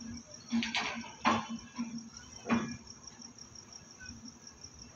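Crickets chirping steadily, with three louder knocks in the first three seconds from the wheels of slowly reversing passenger coaches running over rail joints.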